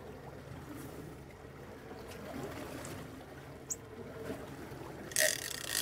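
Small-boat ambience: a Suzuki outboard motor running low and steady under a faint wash of water, with a few light ticks. About five seconds in comes a short, loud rush of hiss.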